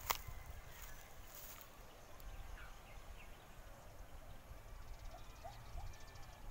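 Quiet outdoor ambience: a steady low rumble on the microphone, a sharp click just after the start, and a few faint short bird chirps in the second half.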